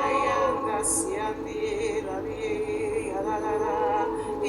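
A woman singing in tongues: long, wavering held notes with short sibilant syllables between them.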